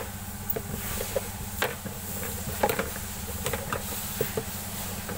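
Scattered light clicks and knocks from hands-on work on a Suzuki Carry's dashboard and cab floor, over a steady low hum.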